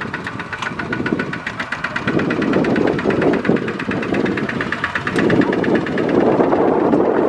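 Single-cylinder diesel engine of a Kubota RT140 two-wheel tractor running with a fast, even knock. It gets louder and rougher from about two seconds in, as it strains to pull a loaded rice trailer whose wheel is stuck in mud.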